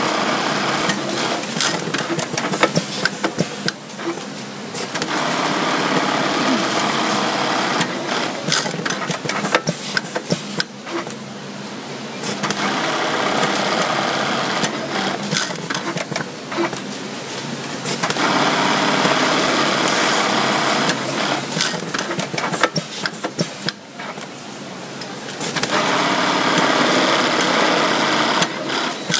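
Dürkopp Adler 580-321 Multiflex automatic buttonhole sewing machine stitching, in several runs of a few seconds each with short pauses between them as each buttonhole cycle ends.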